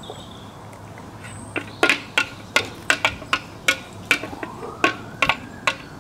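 A spoon clinking against a glass mixing bowl as batter is worked into chicken pieces: sharp irregular clinks, about two or three a second, starting about a second and a half in.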